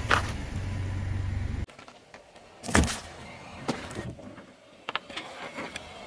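A car tyre crushing a squash, with one sharp crack at the start over the car's low steady hum. After a sudden drop in level there is one loud thud about three seconds in, then a few light clicks.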